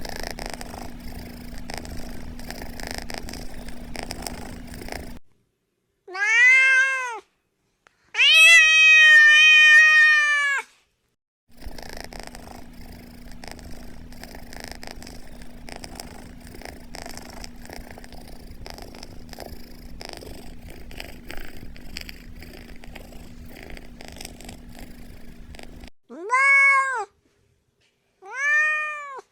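Domestic cat purring steadily, broken by a short meow and then a long drawn-out meow; the purring resumes, and two short meows come near the end.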